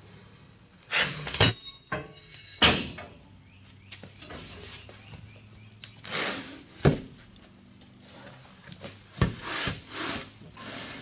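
Homemade steel lever bead breaker pressing its foot into the sidewall of a deflated ATV tire: a loud cluster of metal clanks with a short high squeak about a second in, then scattered knocks and scuffs as the tire is handled and turned over.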